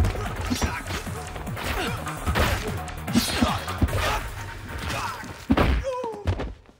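Action-film fight soundtrack: music under a rapid run of punches, whacks and crashing impacts, with a cluster of hard hits near the end before the sound drops away.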